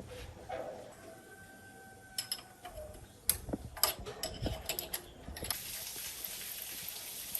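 Metal engine parts being handled, with a cluster of sharp clicks and knocks about two to five seconds in, then a steady rushing hiss that starts about five and a half seconds in.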